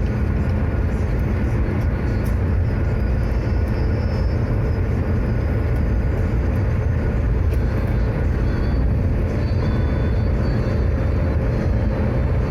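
Steady low rumble of tyre and road noise heard inside a car's cabin while it cruises along a toll road.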